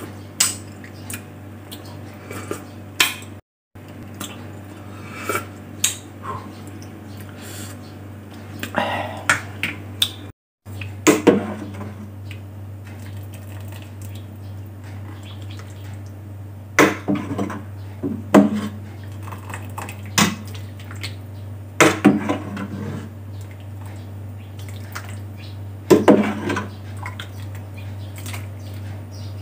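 Kitchen utensil clinking and scraping against a cooking pot, in irregular clusters of sharp clatters over a steady low hum. The sound drops out completely twice for a moment.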